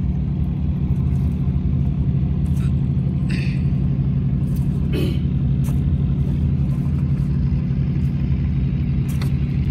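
An engine running steadily with a low, even drone, with a few light knocks over it.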